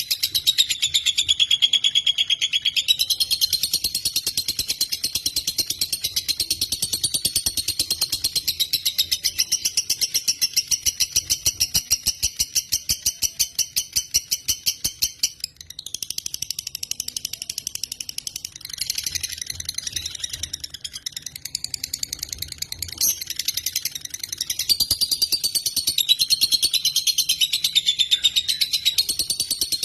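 Lovebird singing a long, fast, rattling chatter of rapid high-pitched notes, with a brief dip about halfway through before it carries on.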